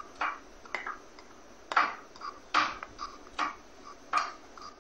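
Metal spoon scraping and clinking against a ceramic bowl as gram flour is stirred with a little water into a thick batter: about six strokes, some with a brief ring.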